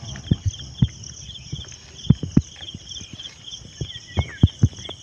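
Insects chirping steadily in quick regular pulses, under irregular low thumps and knocks as the hooped duari net trap is handled and shaken out. A short bird chirp about four seconds in.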